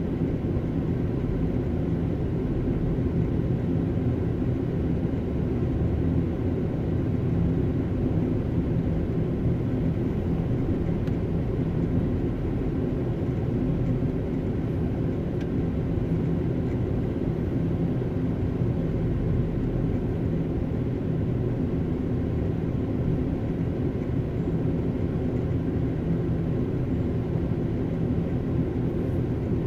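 Steady low road noise heard from inside a moving car on a freeway: tyre rumble and engine hum, unchanging throughout.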